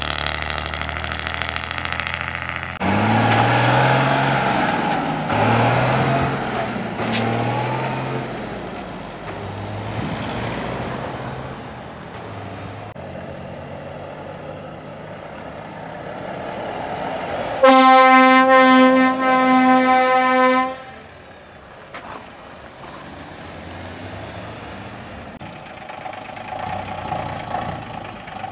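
Heavy diesel trucks pulling away: an engine revs up three times in quick succession as it gets going, then a truck air horn sounds loudly for about three seconds, followed by quieter engine running as another truck approaches.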